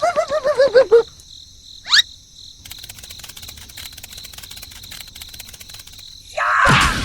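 A string of cartoon sound effects. It opens with a wobbling, warbling tone for about a second and a quick rising zip, followed by a quiet stretch of cricket-like chirring, and ends with a loud noisy burst near the end.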